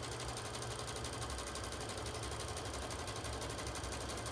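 Brother sewing machine running steadily at speed, stitching fabric in a fast, even run of stitches.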